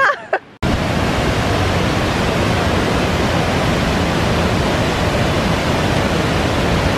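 Steady rushing of a waterfall pouring into a rock gorge. It sets in suddenly about half a second in and stays even throughout.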